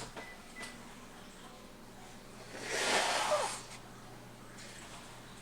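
A person sneezing once: a single breathy burst about three seconds in, lasting about a second.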